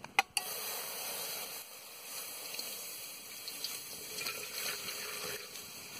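Coconut water pouring from an opened green coconut into an empty aluminium pot, a steady splashing stream. It begins just after a single sharp knock.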